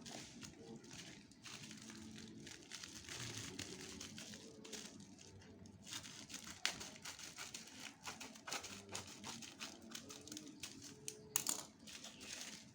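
Product packaging being handled and opened by hand: irregular plastic and cardboard crinkling and rustling with small clicks, and a louder crackle about eleven seconds in.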